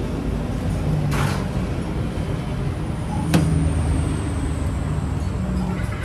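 Steady low background rumble of a busy restaurant or street. A brief hiss comes about a second in, and a single sharp clink just past halfway.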